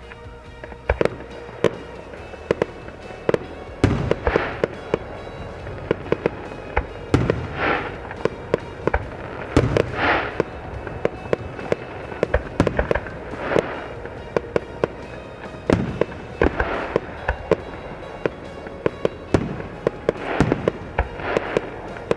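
Fireworks display: a rapid, continuous run of sharp bangs and pops, with heavier rushes of bursts every few seconds.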